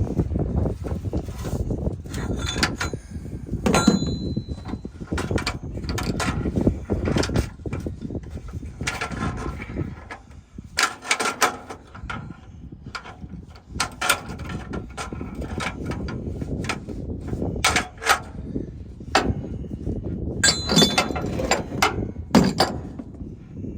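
Metal clanking and knocking from hand tools working a pipe loose on a truck, with a few sharp strikes that ring briefly, over wind buffeting the microphone.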